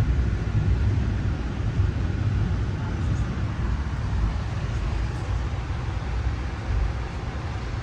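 Steady low rumble of a moving passenger train heard from inside a stainless-steel Skyline dome car: wheels on rail and the car body running.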